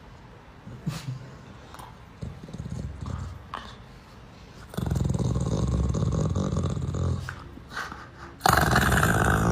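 A dog growling: a low, pulsing growl starts about five seconds in, and a louder, harsher growl comes near the end.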